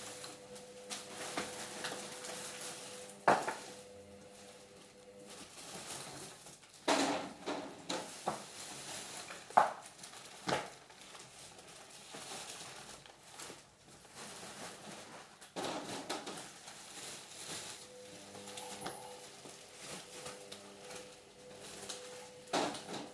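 Groceries being handled and set down at a supermarket checkout: irregular knocks and clatters of items, over a steady hum.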